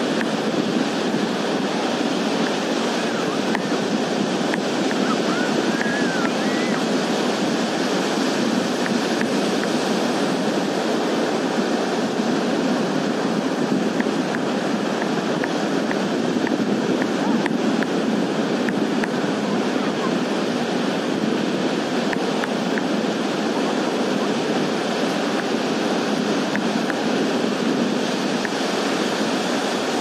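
Small surf breaking and washing up over a flat sandy beach: a steady, even rushing of waves.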